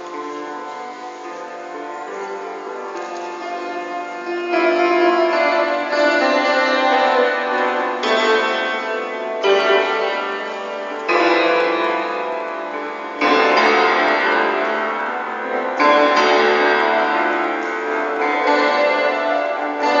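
Becker grand piano being played: soft ringing notes at first, then from about four seconds in, loud chords struck every couple of seconds, each left to ring on and fade.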